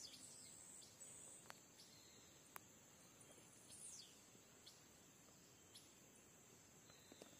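Near silence with faint outdoor ambience: a steady high-pitched insect drone, with a few short falling bird chirps.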